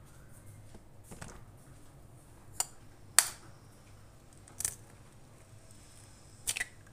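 Eggshells tapped against the rim of a plastic food processor bowl to crack them: four sharp clicks, the loudest a little past three seconds in, over a faint low hum.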